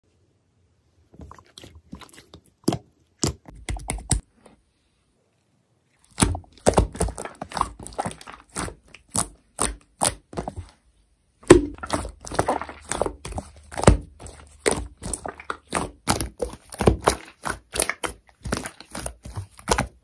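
Thick white slime being squeezed, pinched and pressed by hands, giving rapid sticky clicks and little pops. It is sparse at first, stops for a moment twice, then grows busy.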